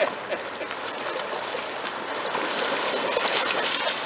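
Dogs wading and running through shallow water, their legs splashing in a steady wash of noise, with a few sharper splashes about three seconds in.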